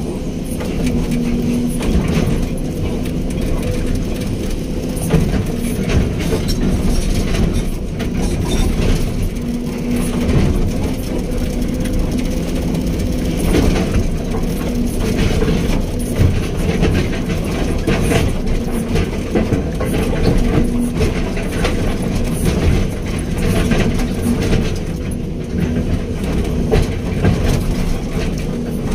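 Hydraulic excavator's diesel engine running steadily while the machine works, with frequent irregular metallic clanks and rattles.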